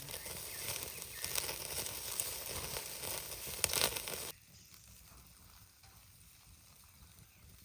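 Meat sizzling and crackling on a grill over a very hot fire. It cuts off abruptly about four seconds in, leaving a much quieter background.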